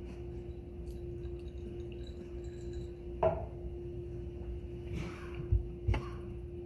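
Room tone with a steady low hum, broken by a short sharp knock about three seconds in and two soft thumps near the end.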